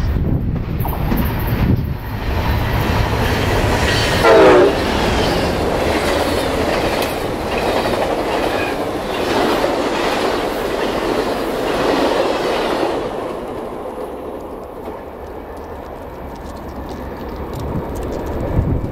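Amtrak Crescent passenger train passing at speed. The locomotive's rumble opens it, with a brief, loud horn blast about four seconds in. The clickety-clack of the passenger cars' wheels over the rail joints follows and fades away after about thirteen seconds.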